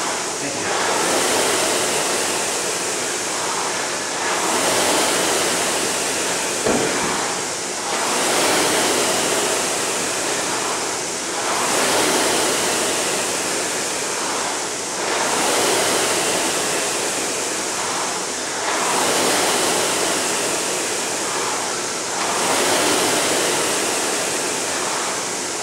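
Air rowing machine's fan flywheel whooshing in a steady rhythm, surging with each pull and easing on each recovery, about one stroke every three and a half seconds.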